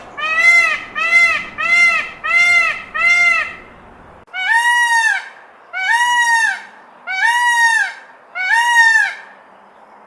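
An animal calling over and over in loud, nasal, pitched calls that rise and fall: five short calls in quick succession, then, after a cut, four longer, higher calls about a second apart.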